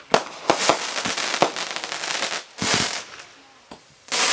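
Aerial fireworks bursting: several sharp bangs in the first second and a half, a longer hissing, crackling burst near three seconds, then a lull before another loud burst at the very end.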